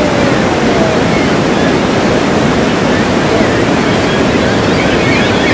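Niagara Falls' cascading water heard from close below: a loud, steady rushing roar of falling water and spray.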